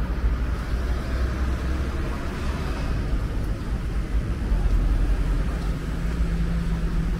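Low, steady engine rumble of motor traffic, with a further steady hum coming in about five and a half seconds in.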